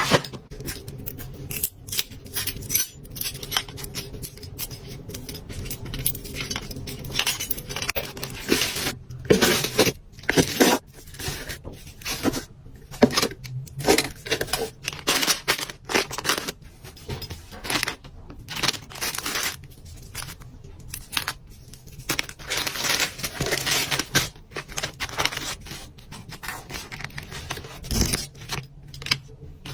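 Hands handling and opening packaging up close: irregular rustling, scraping and many small sharp clicks.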